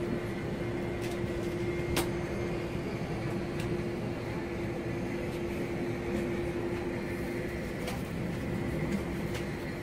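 Steady mechanical hum of airport ground machinery beside a parked jet airliner, with a constant mid-pitched tone and a few faint clicks.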